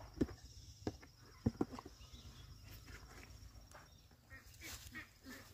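A few light knocks and rustles from blue plastic tubs being picked up and handled, most of them in the first two seconds, with quiet footsteps on grass.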